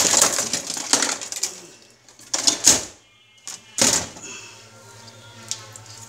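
High-voltage output of a homemade electric-fishing inverter being fired: bursts of sparking, loudest in the first second and a half, with two shorter bursts later. A steady low electrical hum from the transformer follows for the last couple of seconds.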